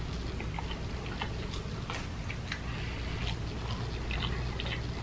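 A person chewing food, with soft scattered mouth clicks, over a steady low hum.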